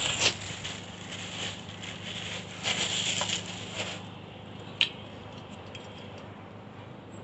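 Clear plastic bag crinkling and rustling as a scissor-arm microphone stand is pulled out of it, for about the first four seconds. Then quieter handling of the metal arm, with one sharp click a little past the middle.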